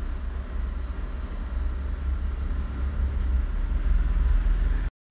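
A steady low rumble with a faint hum above it, cutting off abruptly near the end.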